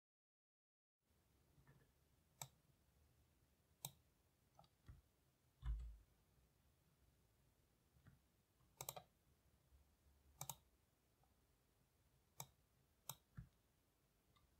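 Faint, scattered computer mouse clicks over near silence, starting about a second in, several coming as quick double clicks, with one duller knock in the middle.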